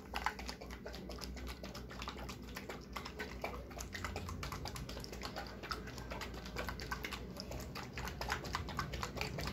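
Small plastic bottle of hand sanitizer thinned with water being shaken hard by hand: quick, irregular clicking and sloshing that goes on throughout.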